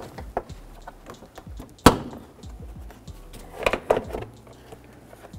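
Plastic air dam panel being worked loose from the radiator support by hand: a sharp plastic snap about two seconds in and a cluster of clacks near four seconds, with light clicking and rattling of the plastic between.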